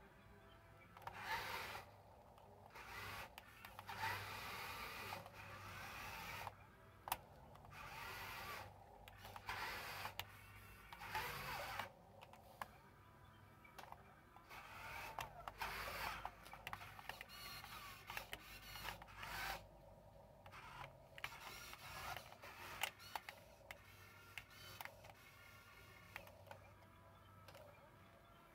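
Small electric motors and gears of a remote-control Caterpillar wheel loader whirring in short stop-and-go bursts as it drives.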